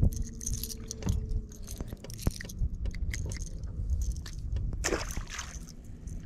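Small clicks and scrapes of a lure's treble hooks as hands work them free of a speckled trout's mouth, over a low rumble and a faint steady hum. A brief rush of noise about five seconds in.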